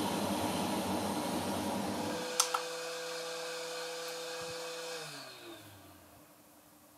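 Hot air rework station blowing with a steady rush of air. About two seconds in there are two sharp clicks and the airflow cuts out, leaving a steady whine from the station's fan. The whine falls in pitch and fades away as the fan spins down.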